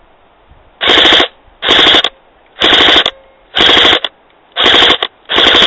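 Tokyo Marui FA-MAS electric airsoft gun firing on full auto in short bursts of about half a second each, roughly one burst a second, with a rapid buzzing rattle of shots in each burst.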